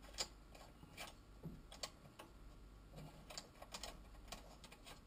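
Faint, irregular small metallic clicks and taps as a braided flexible hose's nut is threaded by hand onto a copper pipe fitting.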